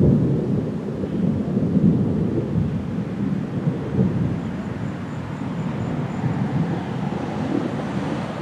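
Thunder rumbling low and unevenly during a storm.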